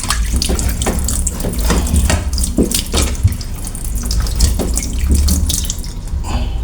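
Water from a newly installed kitchen faucet running into the sink, with irregular splashing; the flow is weak.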